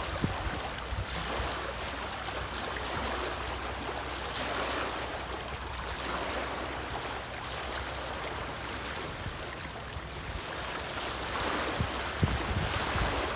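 Choppy lake water lapping and splashing against a rocky shoreline in swells that rise and fade every few seconds, with wind buffeting the microphone in gusts near the end.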